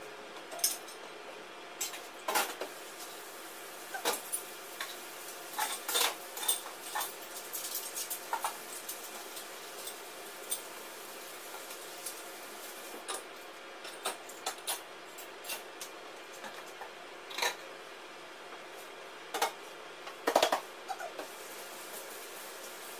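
Dishes and cutlery clinking and knocking as they are handled at a kitchen sink and dishwasher, in scattered separate knocks, the loudest about two and a half seconds before the end.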